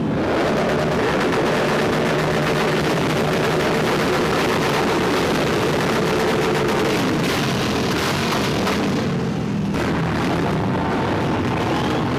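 A pack of motorcycle engines running and revving together, mixed with the steady noise of a large cheering crowd.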